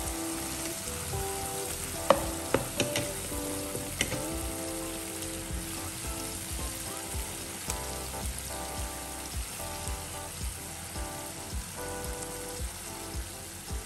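Thick chilli masala with boiled eggs sizzling in a frying pan. A few sharp clinks about two to four seconds in, from the metal ladle knocking against the pan. Instrumental background music plays throughout.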